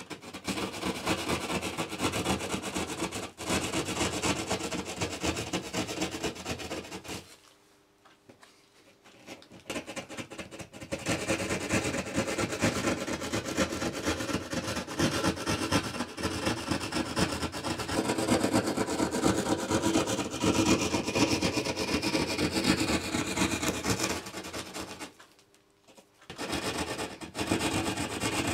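Hand drywall saw cutting through plasterboard in rapid back-and-forth rasping strokes. The sawing stops twice, for a couple of seconds about seven seconds in and for about a second near the end.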